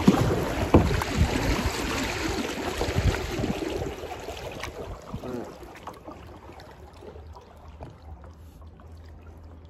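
Double-bladed paddle strokes in river water: blades dipping and splashing, with a few thumps in the first few seconds. The water noise dies down to a faint trickle after about six seconds.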